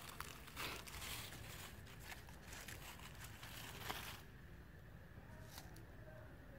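Dry fallen leaves rustling and crunching with scattered crackles, as if stepped on or shifted by movement. It stops about four seconds in, leaving only a faint steady background.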